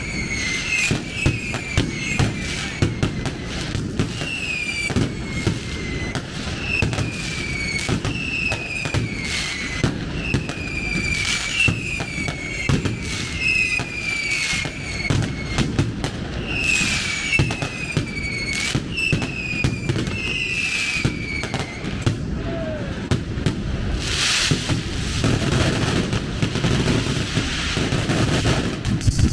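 Fireworks going off: a rapid string of short whistles, each falling in pitch, mixed with sharp cracks. The whistles stop about three quarters of the way through while the cracking carries on.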